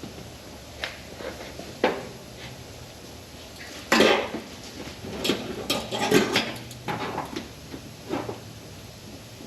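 Light metallic clinks and knocks of tools or metal parts being handled, a few scattered at first, then a busier cluster of them from about four seconds in.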